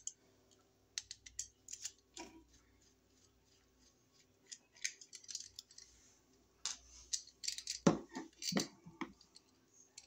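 Scattered light clicks and scrapes of a screwdriver working against the metal terminal screws of a duplex wall receptacle as it is handled, with the louder clicks coming in the last few seconds.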